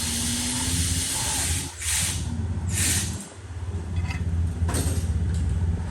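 2008 Dodge Caravan's 3.3L V6 idling with a cylinder 3 misfire, under a loud hiss that comes and goes in surges.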